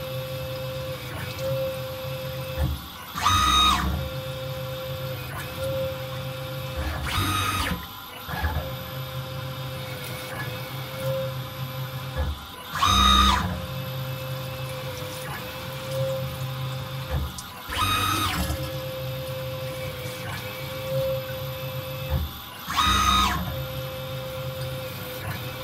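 CNC mill rigid-tapping a row of holes in an aluminium plate under flood coolant: a steady motor hum runs throughout, and every four to six seconds a short, louder burst of higher motor whine comes as the machine moves from one hole to the next.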